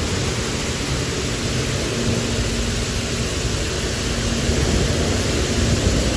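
Mark VII touch-free automatic car wash spraying high-pressure water over a car: a steady, loud hiss of spray with a faint low hum underneath, growing a little louder about halfway through.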